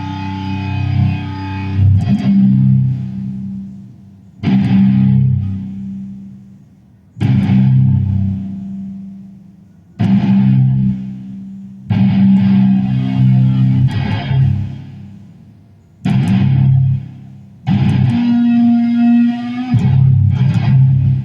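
Guitar playing: low chords or notes struck about every two to three seconds, each ringing out and fading before the next.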